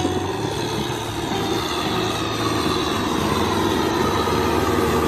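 Kubota M6040SU tractor's diesel engine running steadily as the tractor tills a flooded rice paddy, growing a little louder as it comes closer.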